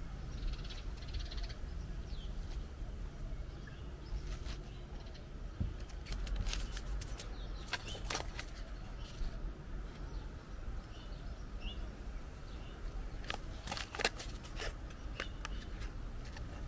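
Garden ambience: faint bird calls over a steady low breeze rumble, with short crinkling clicks from a paper seed packet being handled, in clusters about a third of the way in, around eight seconds and again near fourteen seconds.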